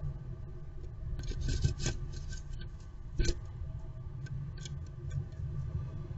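Blue tit scrabbling into and moving about a wooden nest box, its claws scratching and tapping on the wood: a flurry of scratches about a second in, a sharper knock about three seconds in, then a few lighter scratches, over a steady low rumble.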